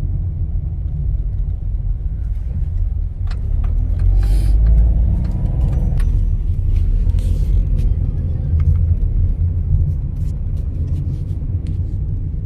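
Engine and road rumble inside a moving car's cabin. About four seconds in the engine note rises for a couple of seconds, then drops, and there are scattered light clicks and knocks.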